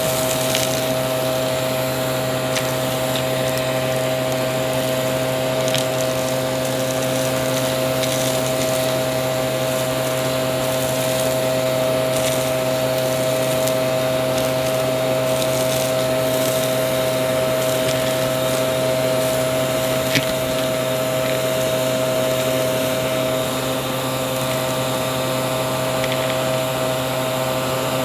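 Aspiron vacuum cleaner running steadily, its motor holding one high hum, with scattered faint clicks and crackles of crunchy debris being picked up.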